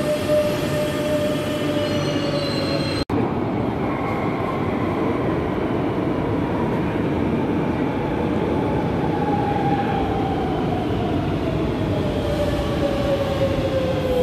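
Madrid Metro trains: a steady electric motor whine and wheel rumble from a moving train, broken by a sudden gap about three seconds in. After the gap comes rumbling from an arriving train, whose motor whine falls slowly in pitch as it brakes into the station.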